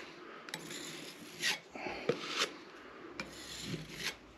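Metal filling knife scraping at the plaster edge of a downlight hole in a ceiling, paring the filled edge back a little at a time in several short scraping strokes.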